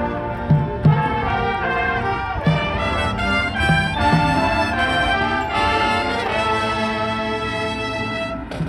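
Marching band brass section playing sustained chords, with a few drum hits in the first few seconds.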